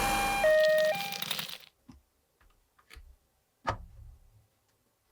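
Toy ambulance's electronic hi-lo siren, two pitches alternating about every half second, cutting off a second and a half in. It is followed by a few sharp clicks of plastic toy parts being handled, the loudest near the end.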